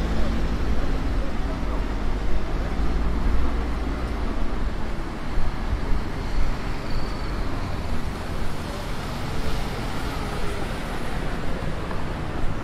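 Street traffic: a pickup truck's engine running as it passes close in the first few seconds, then the steady noise of traffic on a wet road.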